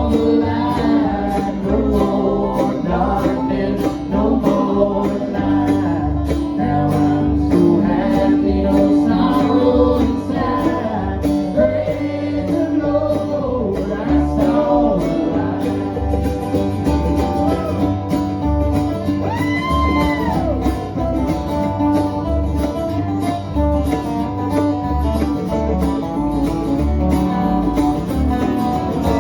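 Country band music with guitar over a steady bass beat, likely an instrumental break in the song.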